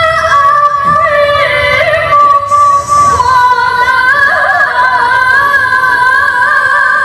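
A woman reciting the Qur'an in melodic tilawah style into a microphone: long, high held notes broken by quick ornamented runs.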